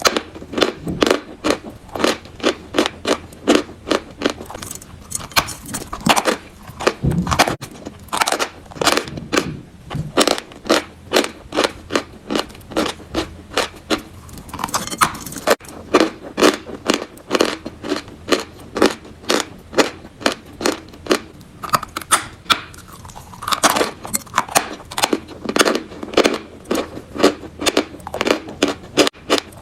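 Chalk being chewed close to the microphone: a steady run of crisp crunches, about two to three a second.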